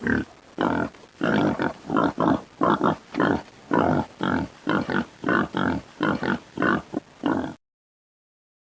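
Feral hog grunting in a rapid, steady series, about three grunts a second, which cuts off abruptly near the end.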